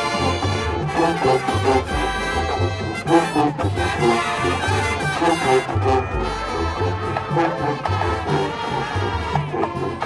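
High school marching band playing a brass-heavy tune, trombones and trumpets over a steady, rhythmic low pulse.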